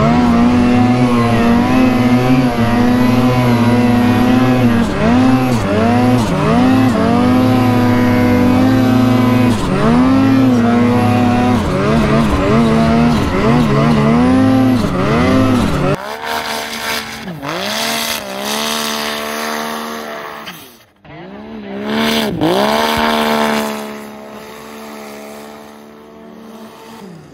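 Snowmobile engine running hard and changing revs over and over as it rides through powder. About sixteen seconds in, a four-stroke Yamaha Sidewinder snowmobile revs in three hard bursts, spinning with no traction in deep powder, then drops away near the end.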